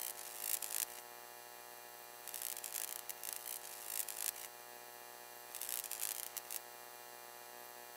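A steady humming tone with three bursts of hiss, each a second or two long and about two and a half seconds apart. It stops abruptly at the end.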